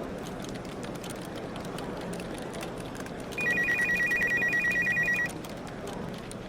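Office telephone ringing once for about two seconds midway: an electronic warbling trill in two close high tones. Underneath is steady office room noise with faint clicks.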